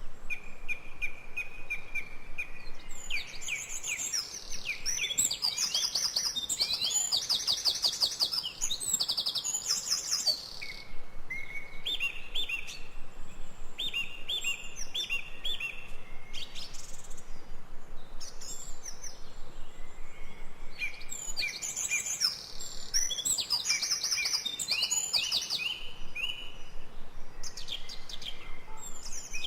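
Several birds singing and calling: rapid high trills and repeated chirps, busiest twice, over a faint steady hiss.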